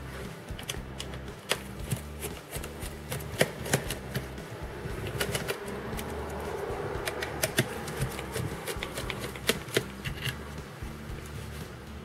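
Irregular sharp clicks and taps of a small screwdriver working screws out of a laptop motherboard and chassis, with light handling and scraping of the tool and screws on the metal frame.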